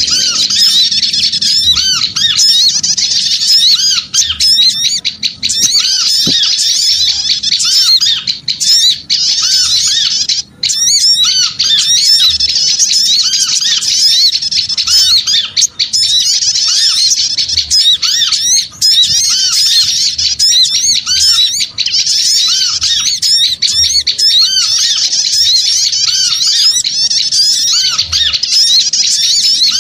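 Bird-lure recording of a flock of small birds chattering noisily: dense, overlapping high-pitched calls with a lower call repeating about once a second, briefly thinning about ten seconds in. It is played to call in small birds.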